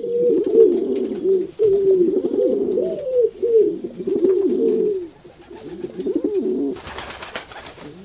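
Pigeons cooing, a string of low, bending coos one after another. Near the end there is about a second of rustling noise.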